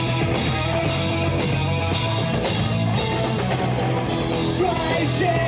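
Live rock band playing loud and steady: electric guitar, bass and drum kit.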